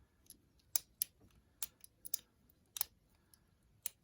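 Lever pick and tension tool clicking against the levers inside a 4-lever Old English style padlock as it is picked, about eight sharp, irregularly spaced metal clicks.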